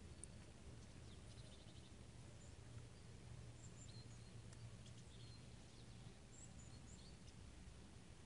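Faint wild birds chirping: scattered short high calls and one brief trill about a second in, over a quiet steady low hum.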